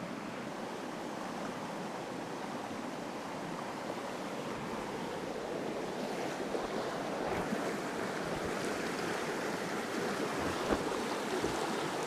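Steady rush of a small river's water running past, growing slightly louder over the second half.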